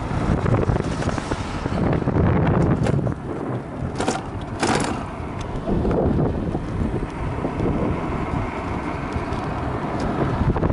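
Wind buffeting the microphone of a camera on a moving electric scooter: an uneven low rumble with road noise, and two short hisses about four seconds in.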